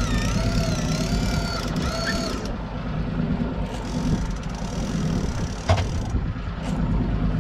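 Steady low rumble of a fishing boat on open water. A wavering high-pitched tone sounds for the first two seconds or so, and a single sharp knock comes near the end.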